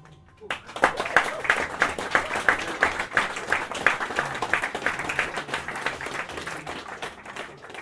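Audience applauding after the tune ends. The clapping starts about half a second in, with individual claps standing out, and thins out near the end.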